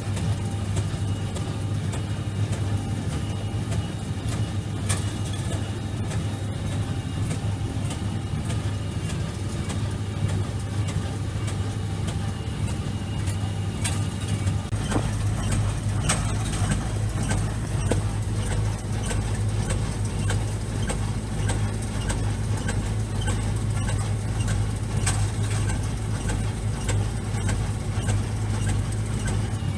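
Fendt 720 tractor's six-cylinder diesel engine running steadily while pulling a Massey Ferguson SB139 small square baler, with many sharp knocks from the working machinery over the engine hum. About halfway through, a deeper rumble comes in under the engine.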